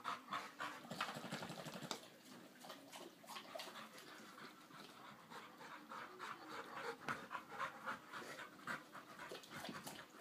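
A puppy panting quickly and evenly, a few breaths a second, tired out after rough play; the panting is louder for the first two seconds and then softer.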